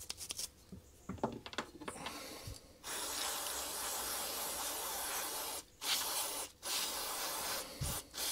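A small brush scrubbing a lawn mower carburetor float with light scratching, then an aerosol can of carburetor cleaner spraying a steady hiss from about three seconds in, with three short breaks between bursts.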